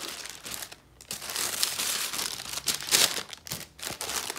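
Tissue paper rustling and crinkling as hands fold it back inside a shoe box, in irregular bursts with brief lulls.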